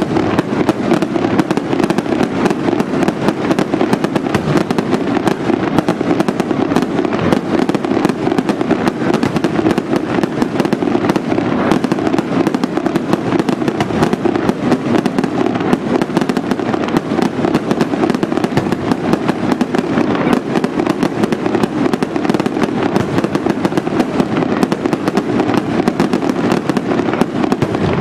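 Picone Fireworks pyrotechnics going off in a dense, continuous barrage of rapid bangs and crackles, with no let-up.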